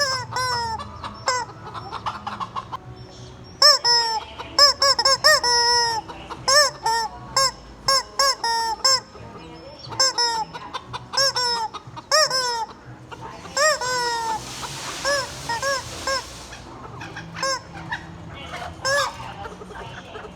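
Rubber squeaky chicken toy squeezed over and over, giving short honking squawks that rise and fall in pitch, in rapid runs with short pauses between them. A breathy hiss comes in partway through.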